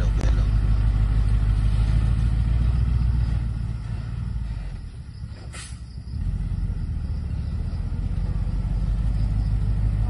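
Diesel dump truck loaded with sand, its engine running steadily as it manoeuvres. The engine sound drops away from about three and a half seconds in and builds back up after six seconds. A sharp click comes about five and a half seconds in.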